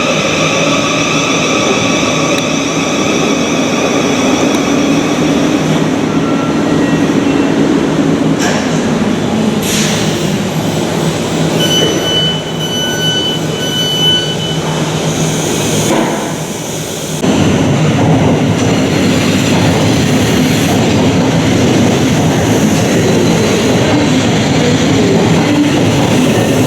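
Thameslink Class 700 electric train at the platform: a steady electric whine of several high tones that fades after about six seconds, then a short run of door-warning beeps about halfway through. From about two-thirds of the way in, the loud, even rumble of a train moving through the station takes over.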